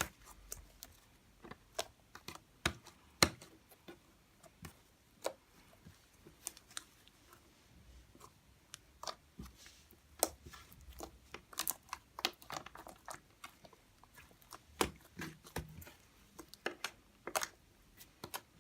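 Fluffy shaving-foam slime squeezed and stretched in the hands, giving faint, irregular sticky clicks and small pops.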